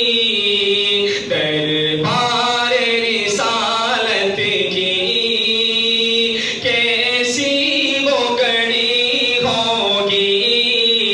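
A man's unaccompanied voice reciting a naat, an Urdu devotional poem in praise of the Prophet, sung in long held notes with ornamented slides between them.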